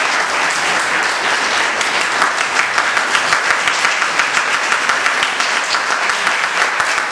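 An audience applauding, a dense patter of hand claps that grows fuller and louder about two seconds in.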